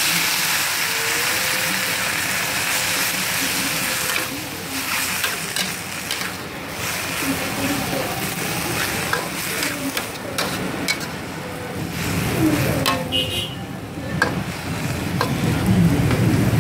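Noodles, cabbage and greens sizzling in a large metal wok while a metal spatula stirs and scrapes them. From about four seconds in, the spatula clinks and scrapes sharply against the wok again and again over the steady frying hiss.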